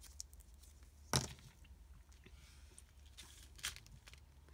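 Double-sided tape being handled and pulled from its roll, and a plastic page-protector sleeve crinkling under the hands, with a sharp tap about a second in and a smaller one near the end.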